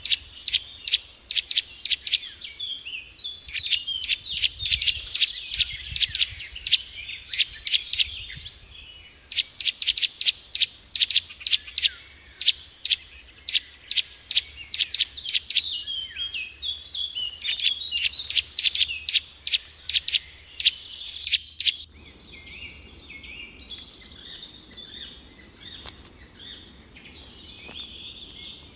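Small birds chirping rapidly and repeatedly in sharp high notes. About three quarters of the way through, the sound cuts abruptly to a fainter, busier chorus of chirping over a low background hiss.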